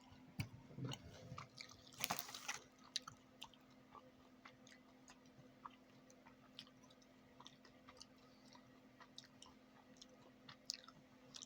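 Faint chewing of a mouthful of crunchy jelly beans with a crunchy candy coating: scattered small crunches and mouth clicks, a little louder about two seconds in.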